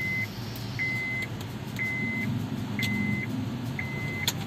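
A car's electronic warning beeper sounding a steady high beep about once a second, each beep about half a second long, over a low rumble. A sharp click comes near the end.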